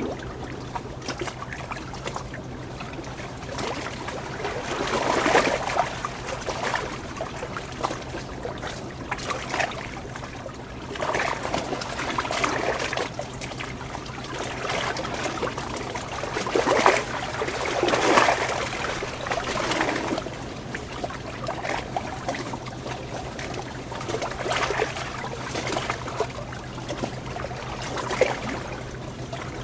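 Water trickling and splashing, as in a small stream, rising and falling in louder surges every few seconds, over a steady low hum.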